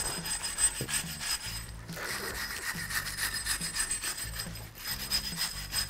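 Steel wire brush scrubbed back and forth over a rusty wheel hub in quick repeated strokes, a steady scratchy scraping. It is clearing rust from the hub's mounting face so a new brake rotor can go on.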